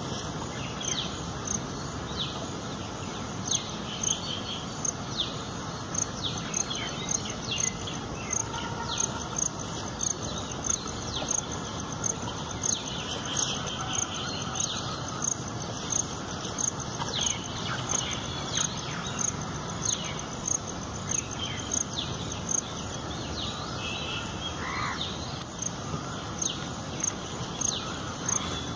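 Insect, probably cricket, chirping in a steady rhythm of short, high pulses, about three every two seconds, with birds calling in short falling notes over steady outdoor background noise.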